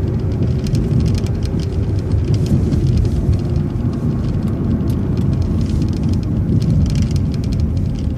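Transit bus heard from inside the cabin: a steady low engine and road rumble, with many small clicking rattles.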